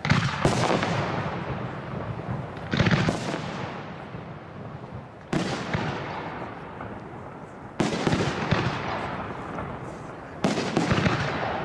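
Aerial fireworks shells bursting: five loud bangs about two and a half seconds apart, each trailing off in a long echoing rumble.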